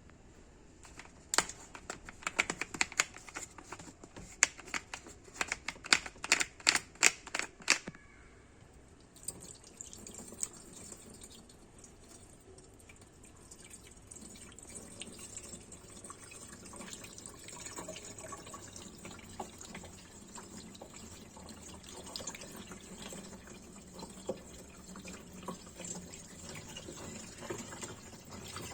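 Water being poured by hand into a countertop dishwasher's water tank. A run of sharp clicks and knocks comes first, then from about nine seconds in a steady pour of water.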